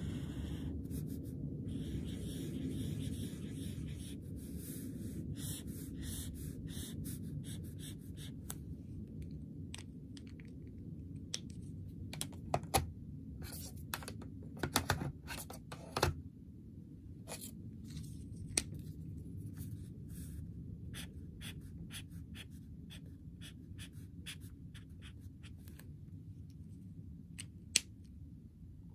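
Chisel-tip Stabilo Boss highlighter scraping across notebook paper in many separate strokes, with a few louder sharp scratches midway. A steady low hum runs underneath.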